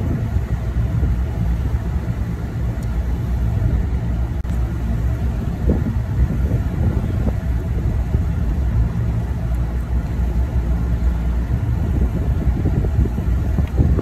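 Trane rooftop packaged AC unit running, its compressor and condenser fans giving a steady low hum. The unit has just been restarted with a freshly cleaned condenser coil and is holding good head pressure.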